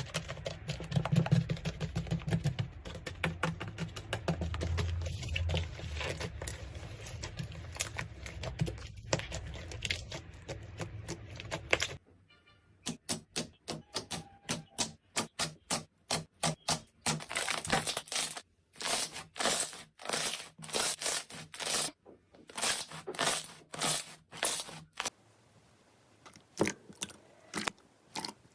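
Slime being pressed and worked by hand, giving rapid, irregular crisp clicks and crackles. About a third of the way through the texture changes abruptly to sharper, more separated clicks, and it gets quieter near the end.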